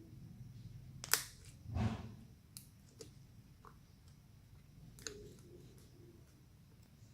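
Handling noise: a sharp click about a second in, a dull thump just after it, then a few fainter clicks.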